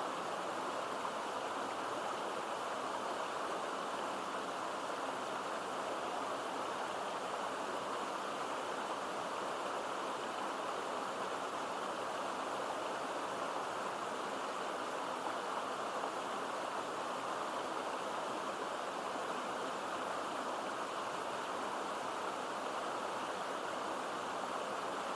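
Mountain stream water pouring into a deep pool: a steady, unbroken rush of falling water.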